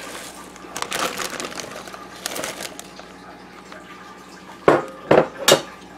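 Baby spinach being handled and dropped into a plastic freezer bag: soft rustling and crinkling, then three sharp knocks close together near the end.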